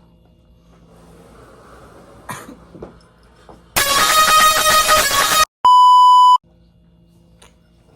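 A loud edited-in sound effect, a harsh blare of steady tones lasting under two seconds and cut off abruptly, followed after a short gap by a pure censor-style bleep of under a second.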